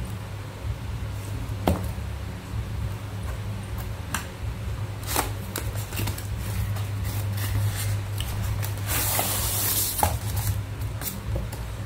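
A cardboard box being handled and opened by hand: scattered taps and rubbing, then a longer scrape about nine seconds in as the lid slides off. A steady low hum runs underneath.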